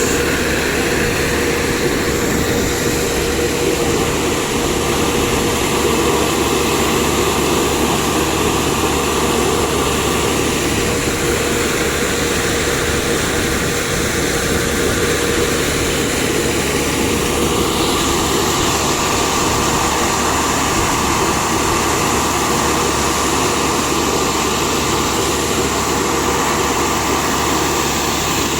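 Reverse circulation drilling rig running steadily: a constant heavy engine drone with a steady high whine over it.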